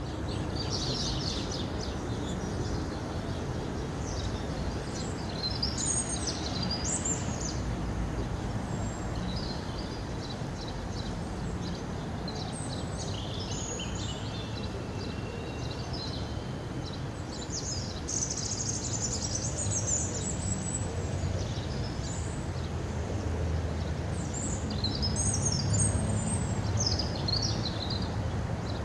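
Outdoor ambience: small birds chirping in scattered flurries over a steady low rumble.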